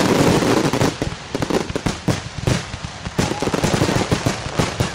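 Aerial fireworks going off in a barrage: a dense continuous blast for about the first second, then a rapid run of separate bangs and crackles that thins out toward the end.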